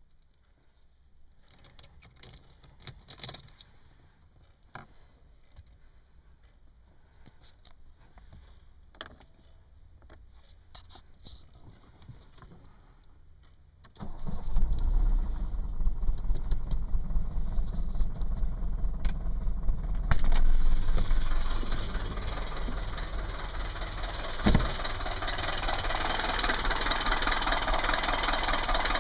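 A few faint clicks, then about halfway through the Mercedes W123 200D's four-cylinder diesel starts and runs at an uneven idle. The rough running comes from one cylinder not working well and an exhaust leak; a faulty piston in the first cylinder was found to be the cause.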